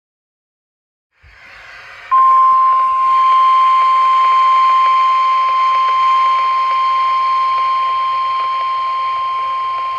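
NOAA Weather Radio 1050 Hz warning alarm tone: one long, steady, loud tone that starts about two seconds in over radio static hiss, after a second of dead silence. It is the alert tone that precedes an emergency broadcast, here a severe thunderstorm watch.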